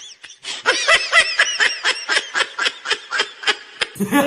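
High-pitched laughter: a rapid, rhythmic run of short giggling bursts, several a second, with a brief gap early on.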